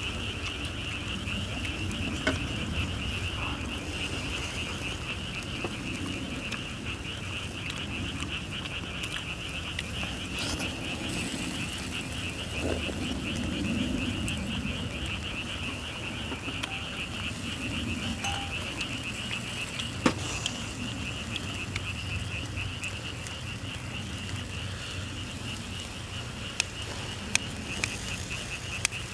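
A dense, steady chorus of calling animals, high-pitched and rapidly pulsing without a break, with a few sharp clicks, one about two-thirds of the way through and several near the end.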